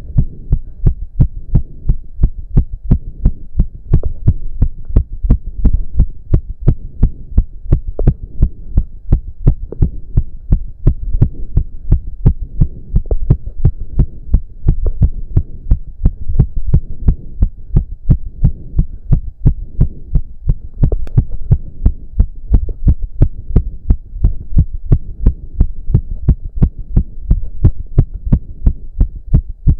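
A man's heart beating very fast and hard, with an even run of low thumps at about three a second, racing from intense cardio exercise at close to 200 beats a minute.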